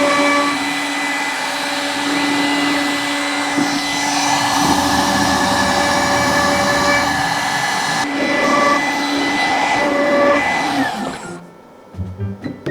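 A small CNC router's spindle runs with dust-extraction suction, cutting plywood with a steady whine over rough noise. It winds down with a falling tone and stops about 11 seconds in.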